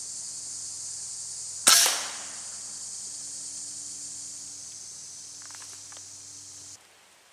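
A single gunshot about a second and a half in, a hunter's shot at a squirrel up in the trees, over a steady high buzz of insects. The buzz cuts off abruptly near the end.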